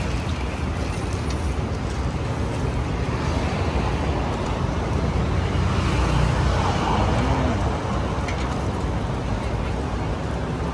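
Steady road-traffic noise on a city street: an even, constant sound weighted to the low end, with no single event standing out.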